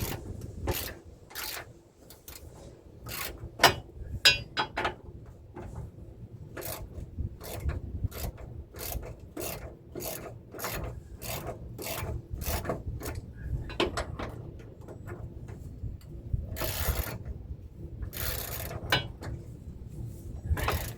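Hand socket ratchet clicking in quick runs of strokes as a bolt on a truck's front differential is worked loose, with two longer rasping sounds near the end.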